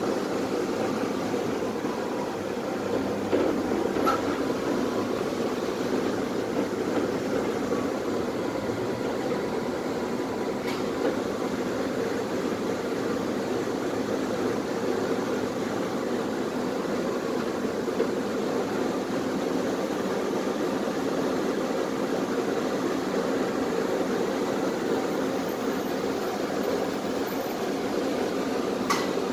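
Steady hum and rumble inside a Tatra T3SU tram, with a few faint clicks.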